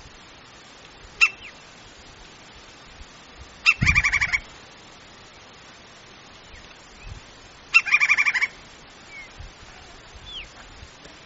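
Woodpecker calling: two short, rapid series of pitched notes about four seconds apart, each opening with a sharp note, plus one brief sharp note about a second in.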